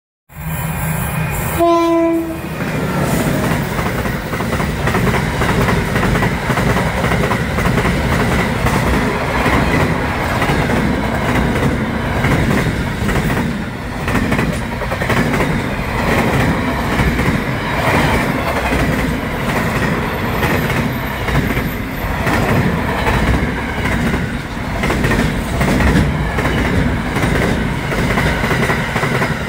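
Freight train of container wagons running past close by, a steady noise of rolling wheels with irregular clatter over the rail joints. A short, pitched train horn note sounds about two seconds in.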